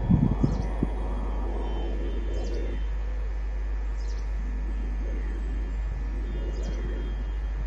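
EMD diesel-electric locomotive approaching, its engine a low steady rumble that is strongest in the first second. Birds give short high chirps every second or two over it.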